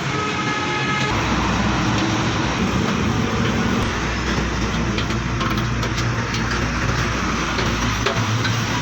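Steady mechanical noise with a low hum that comes in about a second in, over a constant hiss.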